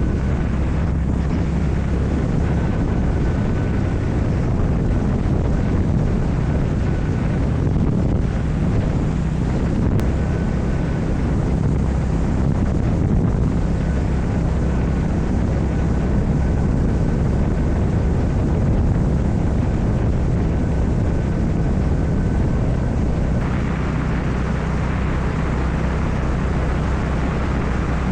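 Honda GB350's air-cooled single-cylinder engine running steadily under way, with wind rushing over the microphone.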